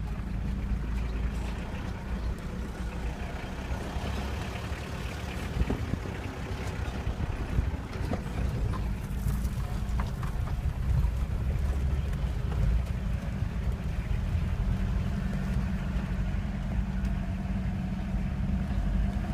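A vehicle driving, a steady low engine and road rumble with a few small knocks and rattles along the way.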